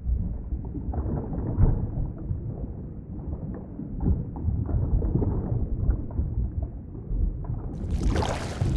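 Underwater ambience: a muffled, low rumble of moving water with irregular gurgles and knocks. Near the end it turns suddenly brighter, with hissing, bubbling water noise.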